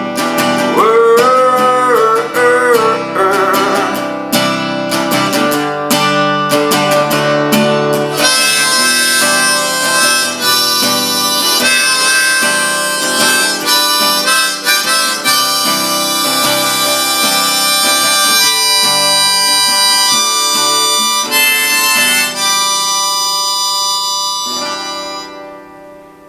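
Harmonica played over strummed acoustic guitar as the instrumental ending of a folk-rock song, with held chords on the harmonica; the music fades out near the end.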